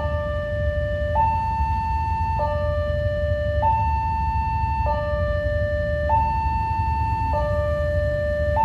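Railway level-crossing warning alarm sounding a steady two-tone high–low cycle, each tone held a little over a second, signalling that a train is approaching. A steady low rumble runs underneath.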